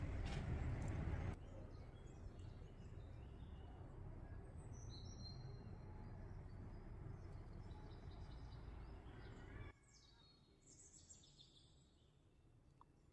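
Outdoor ambience: a steady low background rumble with birds chirping briefly a couple of times. The background drops abruptly about a second in, and again near the end.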